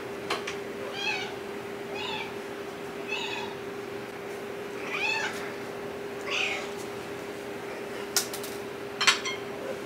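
Cats meowing over and over for their breakfast, a short rising-and-falling meow about every second. Near the end come two sharp clicks.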